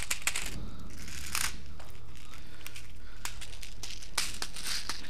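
Close rustling and scuffing of clothing and gear, with scattered small clicks and brief swishes, as the wearer moves and shifts.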